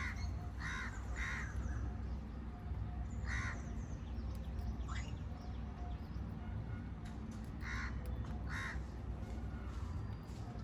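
Small pet parrots giving short, harsh calls, about seven of them in loose clusters, one a quick rising squeak near the middle, over a steady low hum.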